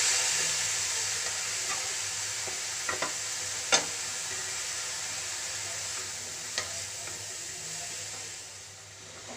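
Shredded cabbage sizzling in hot oil in a metal kadai, giving off its water as it wilts. It is stirred, with a few sharp knocks against the pan, and the sizzle eases slightly near the end.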